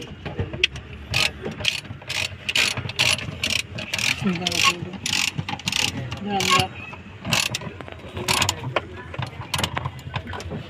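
Ratchet wrench clicking in a run of quick back-and-forth strokes, about two to three a second, then more sparsely near the end.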